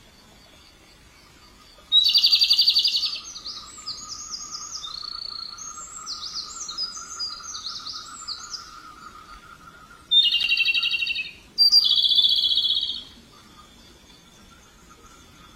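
Robin singing: three loud, rapid trills of about a second each, one near the start and two close together later on, with softer varied warbling phrases between them.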